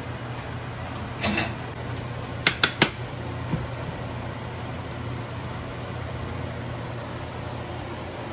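Glass pot lid with a metal rim lifted off a stainless-steel cooking pot: a short rattle, then three sharp clinks in quick succession, over a steady low hum.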